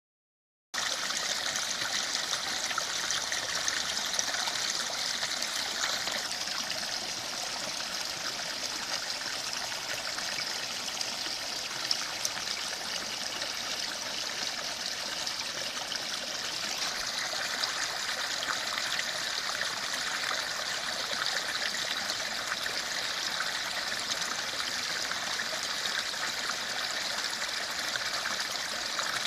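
Small, shallow stream trickling and splashing in two little spills over low, flat stone ledges: a steady water sound.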